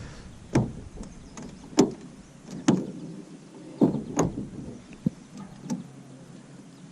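A string of short, irregular knocks and clunks, about seven in all, from gear and movement inside a small fishing boat.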